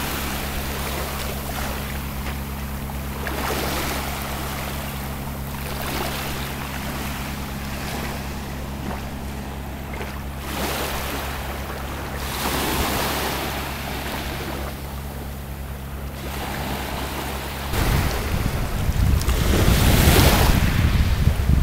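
Small sea waves breaking and washing up the beach, swelling every few seconds. Wind buffets the microphone with a low rumble starting near the end.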